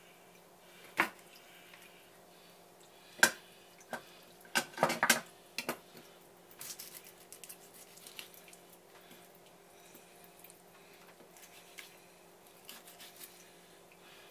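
Kitchen knife and hands working a raw tuna collar on a wooden cutting board: a handful of sharp knocks and clatters in the first six seconds, then quieter, scattered wet handling sounds. A faint steady hum runs underneath.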